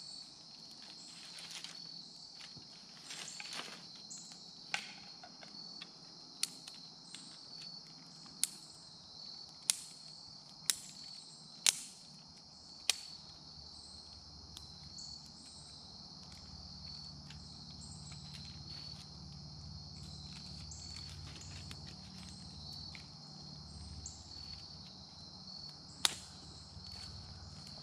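Dry twigs snapping sharply by hand, about once a second over several seconds and once more near the end, as kindling for a small smouldering campfire. Insects chirp steadily and high-pitched behind them.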